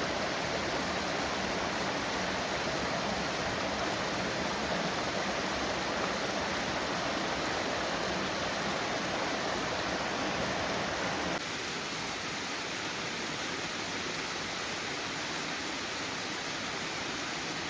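Waterfall: a steady, even rush of falling water that steps down suddenly in level about two-thirds of the way through.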